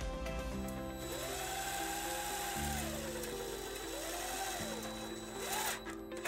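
Cordless drill (DeWalt 20V Max) with a nut-driver bit tightening a worm-drive hose clamp: the motor whine rises about a second in, holds for a couple of seconds and falls away, then comes back in two shorter bursts.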